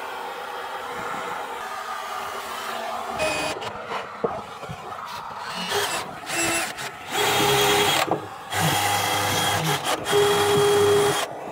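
Vacuum running steadily, then from about three seconds in a power drill boring holes up through the fibreglass deck in several short runs, with two longer runs near the end carrying a steady whine.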